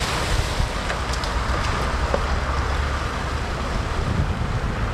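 A Lada 111 (VAZ-2111) estate car driving slowly through a large muddy puddle, its tyres churning and splashing water over the low, steady run of the engine.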